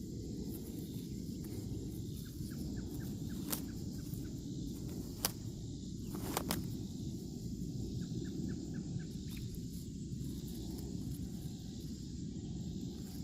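Outdoor garden ambience: a steady low rumble, with three or four sharp clicks in the middle and two short runs of faint, rapid chirping.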